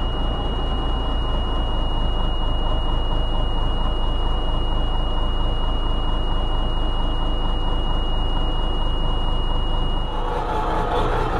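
M923 truck's six-cylinder diesel engine idling steadily just after a start-up. A steady high-pitched warning buzzer sounds over it and cuts off about ten seconds in.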